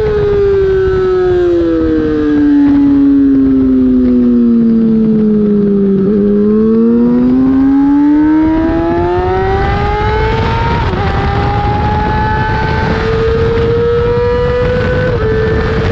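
Race motorcycle engine heard from on board: the revs fall smoothly for about six seconds as the bike slows into a turn, then climb steadily under acceleration, with two upshifts.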